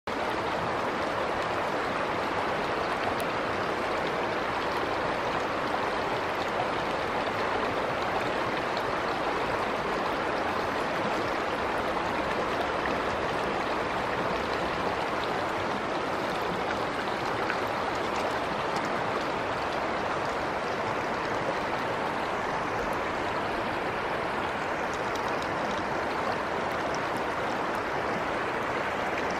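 Shallow river water flowing steadily, an even running-water noise.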